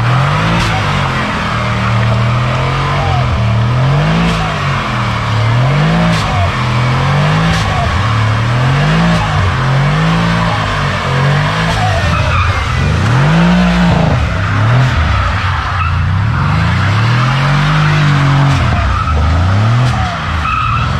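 2019 Mercedes-AMG C63's twin-turbo 4.0-litre V8 revving up and down over and over, about every one and a half to two seconds, as the car spins donuts on wet pavement, with the rear tyres skidding.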